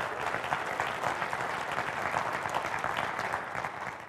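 Audience applauding, a dense patter of many hands clapping that starts to fade near the end.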